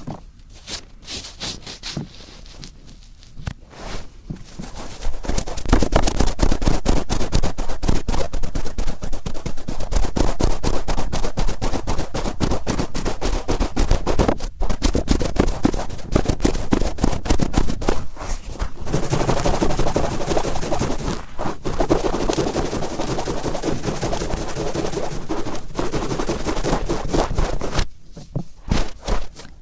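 Cotton swabs rubbed and twisted firmly in the ears, making dense, rapid crackling scratches. The scratching is sparser and softer for the first few seconds, then thick and continuous, and thins out again near the end.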